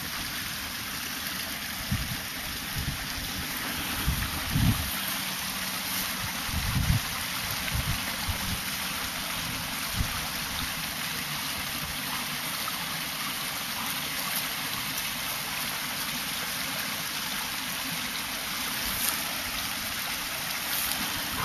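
Small stream trickling and gurgling steadily over a shallow muddy bed. A few dull low thumps come in the first several seconds.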